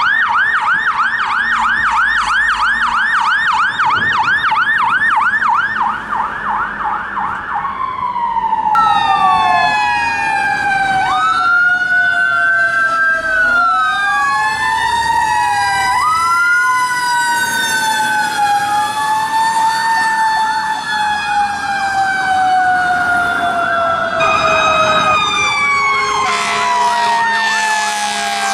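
Fire truck sirens: a fast electronic yelp for the first seven seconds or so, then several sirens wailing together, their pitches rising and falling slowly in long glides. Near the end a quick yelp comes back along with a steady low tone.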